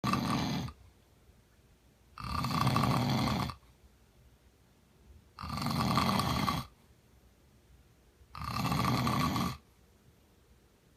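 A man snoring in his sleep: three full snores about three seconds apart, each a little over a second long, with quiet breathing gaps between, and the end of another snore at the very start.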